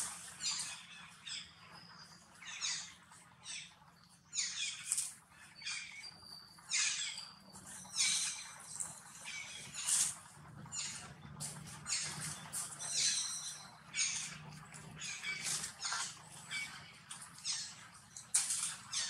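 Infant long-tailed macaque giving repeated short, high-pitched squeaks and cries, about one every second, some in quick pairs.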